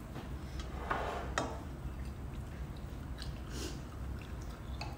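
Quiet eating sounds: spoons clinking in ceramic bowls of hotpot soup and soft chewing, with a couple of sharper clicks about a second in, over a low steady hum.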